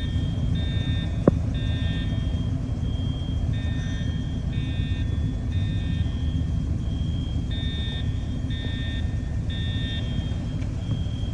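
Fire alarm horns sounding the three-pulse evacuation pattern: three short blasts, a pause, then again, repeating. Under them runs a steady low rumble from an idling vehicle, and there is a single sharp click about a second in.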